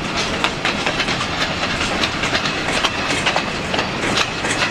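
Empty bulkhead log flatcars of a long freight train rolling past, their steel wheels clattering over the rail joints in a steady run of irregular clicks and clanks.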